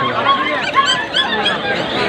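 Busy pet-market stall: overlapping crowd voices mixed with many short, high-pitched squeaky cries that rise and fall, several a second, from the animals in the cages.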